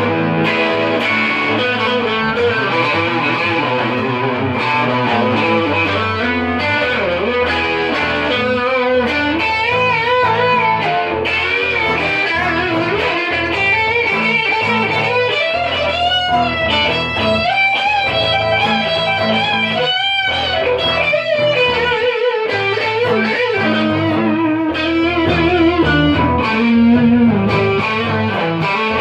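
Music led by electric guitar, a lead line of held notes with wide vibrato over a full band backing.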